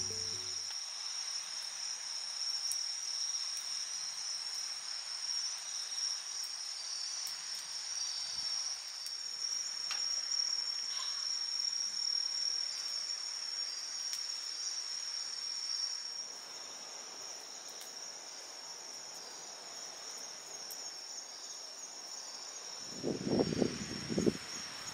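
Crickets chirping steadily at night: a continuous high-pitched trill with intermittent chirps over it. A few low, dull sounds come near the end.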